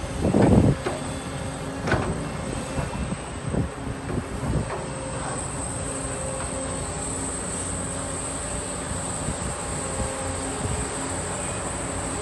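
Excavator's diesel engine running with a steady drone and a high whine. It is broken by several heavy thuds and knocks in the first few seconds, the loudest about half a second in, as earth and the bucket land in the dump truck's bed.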